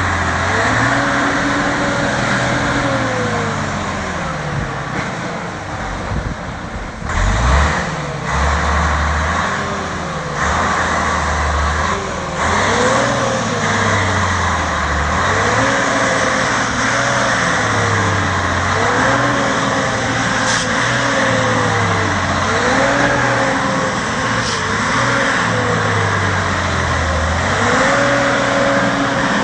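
A heavily loaded lorry's diesel engine revving up and dropping back again and again as the truck struggles through deep mud. There is a low thump about seven seconds in.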